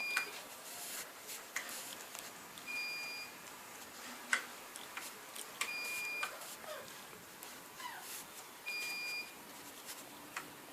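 An electronic beep, a short steady high tone, repeating about every three seconds, with faint scattered clicks in between.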